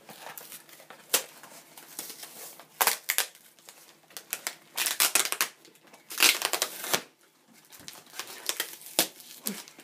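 Plastic wrapping and adhesive tape being crinkled and pulled off a small cardboard box. The sound comes as irregular bursts of rustling and crackling with a few louder rips, and the box is heavily taped.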